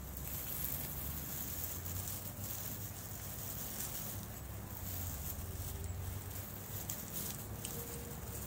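Garden hose nozzle spraying a jet of water up into tree branches: a steady hiss of spray with the water falling back through the foliage, over a low rumble.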